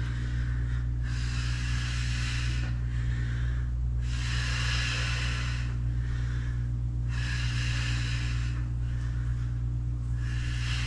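A woman breathing hard and audibly in time with squat reps, one long hissing breath about every three seconds, over a steady low hum.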